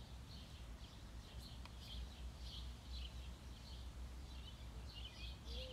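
Small birds chirping, short high notes repeated throughout, over a steady low rumble; near the end a single faint low note rises and falls.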